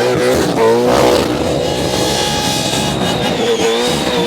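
Supercharged 427 cubic-inch Chevrolet small-block V8 in a VH Commodore held at high revs, its pitch wavering up and down as the throttle is worked, typical of a burnout.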